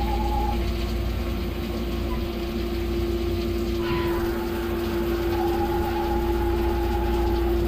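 Skyfire SVM-2 CNC mill's spindle running steadily while a small cutter machines an aluminium block under flood coolant. A steady whine runs throughout. A second, higher tone drops out soon after the start and returns about five seconds in, and a hissier cutting noise comes up about four seconds in.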